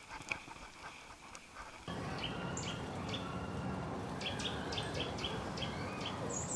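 Small birds chirping, many short high calls repeated about twice a second, over a steady outdoor background hiss that rises abruptly about two seconds in; before that, faint quick ticking.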